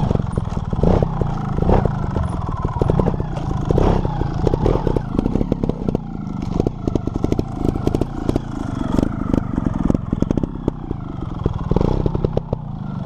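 Trials motorcycle engine running at low revs, surging again and again as the clutch is let out in small bursts to hop the front wheel around, with clattering from the bike.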